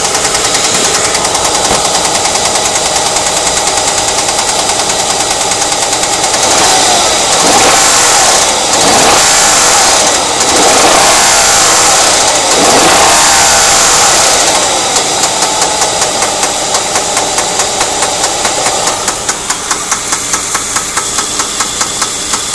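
Ford Mondeo ST220's 3.0-litre V6 engine idling with a rhythmic knock, revved several times in the middle and then dropping back to idle.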